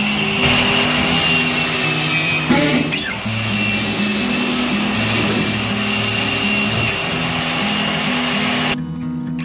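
An electric power tool running steadily with a high whine over woodworking, cutting off abruptly near the end. Background music with a moving bass line plays under it.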